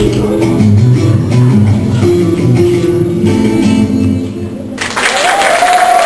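Flamenco guitar music for a tap routine, cutting off suddenly near the end, followed at once by audience applause with a shout or cheer over it.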